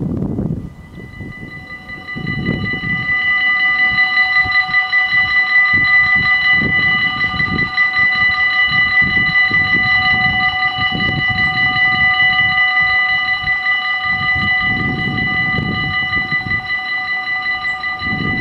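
Dutch automatic level-crossing warning bells start ringing about a second in, a rapid, continuous electric ringing on several steady pitches, signalling that a train is approaching and the barriers are about to lower. Wind gusts buffet the microphone underneath.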